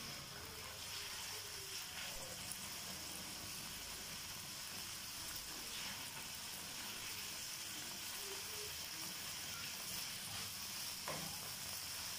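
Boneless chicken strips sizzling steadily as they fry in oil in a nonstick wok, with a few light scrapes of a slotted spoon stirring them.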